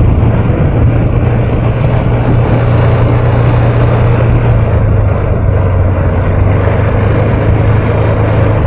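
Yamaha X-Max 250 scooter's single-cylinder four-stroke engine running while riding at a steady pace, heard from the handlebars. Its note drops a little about halfway through.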